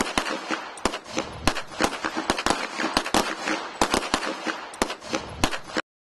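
Several semi-automatic pistols firing at once, with irregular, overlapping shots about three a second. The shooting cuts off suddenly near the end.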